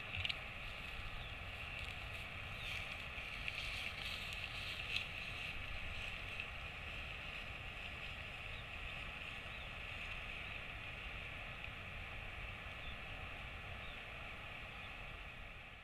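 Steady outdoor ambience: wind rumbling on the microphone under a constant high hiss, with a few faint clicks in the first few seconds.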